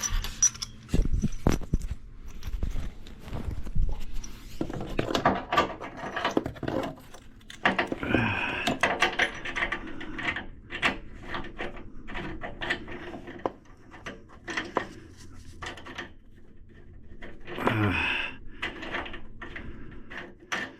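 Metal plumbing fittings and hand tools being handled during a tub faucet install: irregular clinks, taps and knocks, with a short grunt or breath about 8 s in and again near the end.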